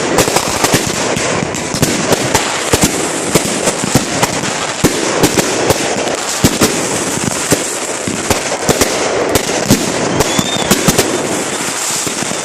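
Fireworks going off in a rapid, unbroken run of sharp pops over a constant crackle, several bangs a second.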